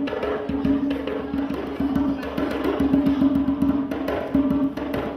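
Afro-Brazilian percussion ensemble playing a dense drum rhythm of quick strokes, with a held pitched note sounding over it.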